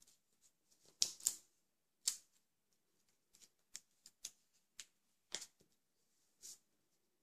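Fingers pressing and smoothing adhesive tape along folded paper strips on a wooden tabletop: a string of sharp paper ticks and crackles, loudest about a second in, with a short soft rub near the end.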